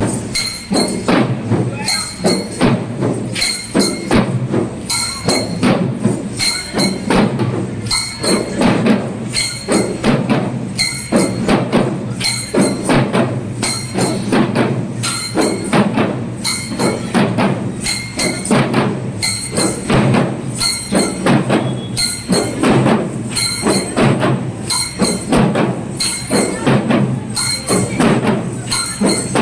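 Teenmar-style procession drumming: a fast, steady beat of drum strikes repeating evenly.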